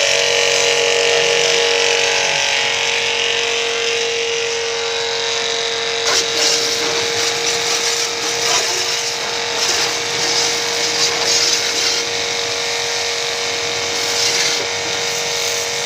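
Pressure washer running: a steady motor whine with water spray hissing over it, the spray becoming more uneven from about six seconds in.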